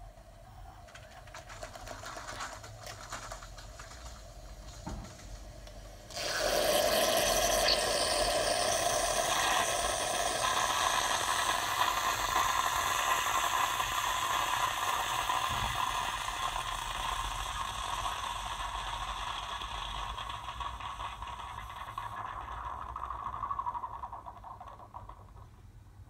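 Tassimo Vivy T12 capsule coffee machine brewing a Suchard hot chocolate disc. It trickles quietly at first; about six seconds in the pump starts loudly and runs steadily, then fades out near the end.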